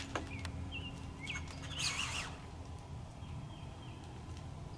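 Short, high chirping animal calls, a few scattered and a louder cluster about two seconds in, over a low steady background hum, with a few light clicks.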